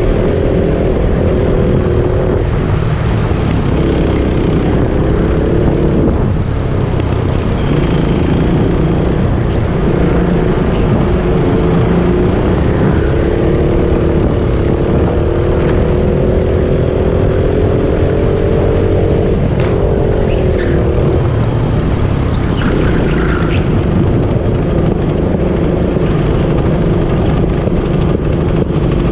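Go-kart engine running hard from the driver's seat, its pitch climbing on the straights and falling away several times as the kart lifts off for corners, over a constant low rumble.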